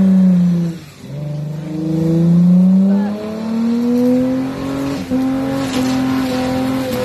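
Nissan Fuga 250GT's 2.5-litre V6 revving hard through a burnout. The revs fall sharply about a second in, climb back, then hold high and fairly steady. A hissing noise, the spinning tyres, builds near the end.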